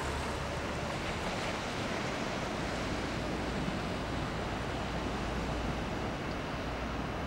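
Steady rushing noise with a low rumble underneath, typical of wind buffeting the microphone.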